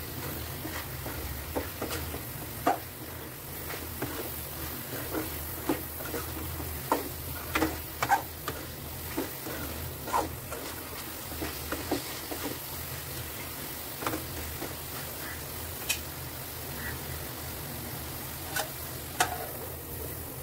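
Steel spoon stirring a thick curry in a steel pan, with irregular clinks and scrapes against the metal over a low sizzle. Near the end a steel plate is set on the pan as a lid with a couple of clinks.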